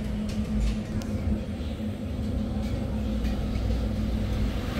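An engine running steadily, a low even hum that holds the same pitch throughout.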